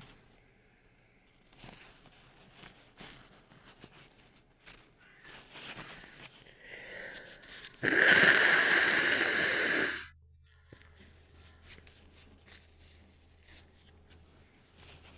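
A woman sniffling and breathing in short, uneven breaths with her nose, the aftermath of a sneeze. About eight seconds in there is a loud, even rush of air, about two seconds long, that cuts off suddenly.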